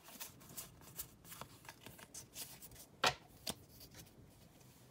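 Pokémon trading cards handled in the hand, sliding and flicking one behind another in faint quick ticks, with two sharper card snaps about three and three and a half seconds in.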